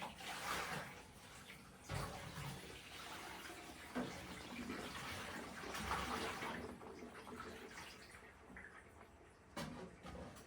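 Water running from a tap into a sink during washing-up, with a few knocks of dishes. The water comes on suddenly and tapers off near the end.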